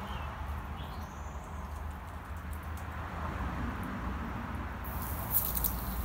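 Faint bird chirps over a low background rumble; about five seconds in, a garden hose's spray nozzle is turned on and water starts spraying with a steady hiss.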